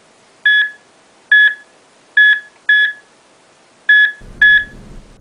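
Cardiac monitor beeping in time with the heartbeat: six short beeps of one steady pitch at slightly uneven intervals, a little under a second apart.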